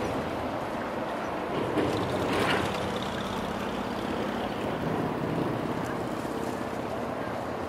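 Steady low hum of a distant engine over wind noise on the microphone, with a short louder noise about two seconds in.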